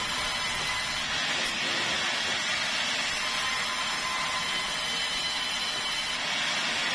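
Sawmill band saw ripping a keruing wood plank, a steady high-pitched hiss with a faint whine that holds even through the cut.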